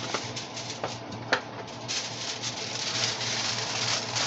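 Aluminium foil crinkling and rustling as it is pressed down by hand over a roasting pan. A few sharp clicks come first, the loudest about a second in, then a steady crinkling from about halfway.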